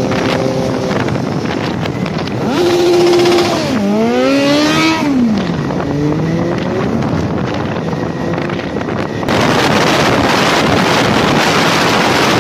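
Motorcycle engine running at road speed, its pitch climbing and dropping through several revs and gear changes. In the last few seconds heavy wind noise on the microphone covers it.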